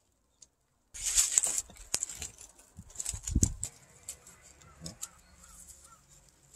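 An arborist's climbing rope being handled and pulled down against the tree trunk: irregular rustling and scraping with many small clicks and a low thump in the middle. A few faint bird chirps come through about two-thirds of the way in.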